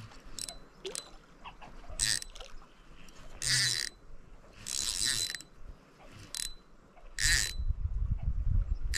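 Fishing reel's drag buzzing out line in several short bursts, about half a second each, as a big hooked smallmouth bass pulls. A low rumbling knocking starts about seven seconds in.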